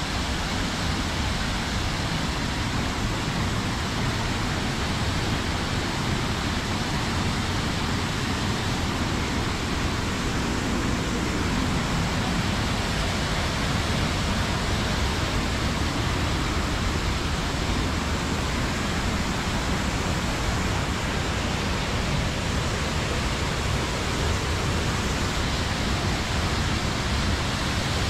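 Waterfall in heavy monsoon flow: a steady, dense rush of water pouring down rock into a churning pool.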